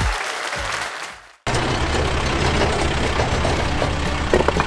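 Applause and music fading out, then after a sudden cut a truck engine running with a steady low hum and a few light clicks near the end.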